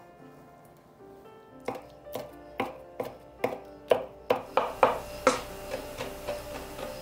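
Kitchen knife chopping pickled plum (umeboshi) flesh on a wooden cutting board: a run of sharp knocks starting about one and a half seconds in, about two a second and quickening, over soft background music.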